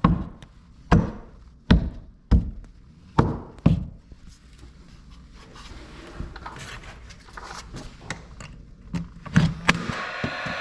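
An uneven series of sharp knocks and thuds from baseboard carpentry work: about six in the first four seconds, then a quieter stretch, then two more near the end.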